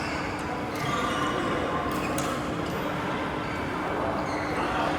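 Badminton hall ambience during play: a steady hum with faint background voices, and a few sharp knocks in the first half, in the manner of racket strikes or shoe contacts on the court.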